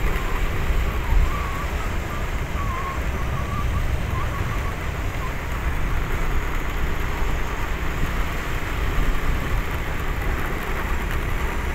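Steady low rumble of wind and road noise from a vehicle driving at speed, buffeting the microphone. Faint wavering chirps come through in the first few seconds.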